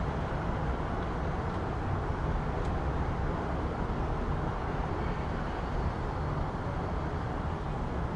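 City street ambience: a steady, low rumble of distant traffic with no distinct events standing out.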